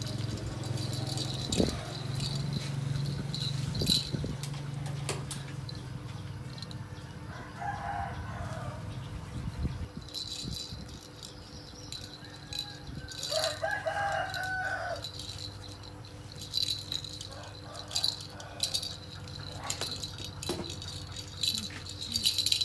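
A baby's plastic ball rattle toy rattling and clicking in small bursts as it is handled, with a chicken calling twice in the background, about eight seconds in and again around thirteen seconds, each call lasting a second or two. A steady low hum runs underneath.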